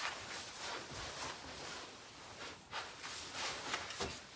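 Soft rustling of clothing being handled, a few brief scuffs about a second apart over a steady hiss.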